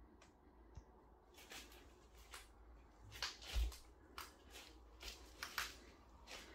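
Faint, irregular scuffs and rustles of someone moving about a bare room, with a dull thump about three and a half seconds in.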